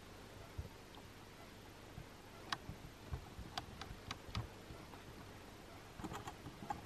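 Quiet forest ambience with faint hiss, broken by a few small sharp clicks: one about two and a half seconds in, a quick run of four a second later, and a cluster near the end.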